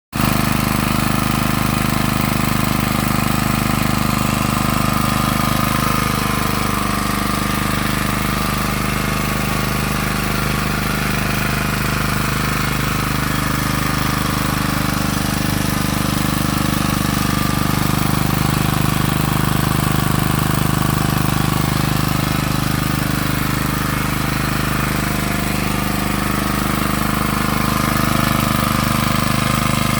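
Norton PGi1300 inverter generator's small engine running steadily, its pitch drifting slightly now and then.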